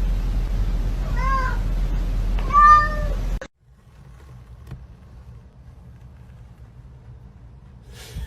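A cat meows twice, about a second and a half apart, over a loud low rumble. The sound then cuts off abruptly to a faint low hum.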